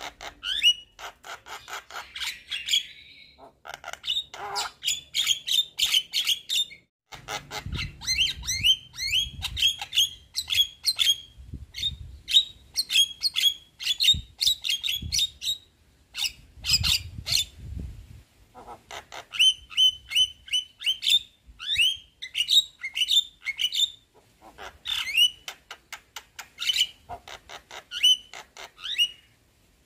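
Javan myna singing its chattering song: fast runs of sharp clicks mixed with short squawking and whistled notes, broken by a few brief pauses.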